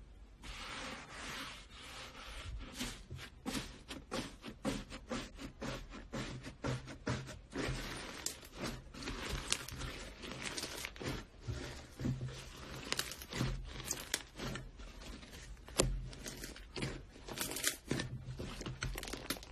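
Slime being squished and worked, giving a dense, irregular run of small crackles, pops and clicks.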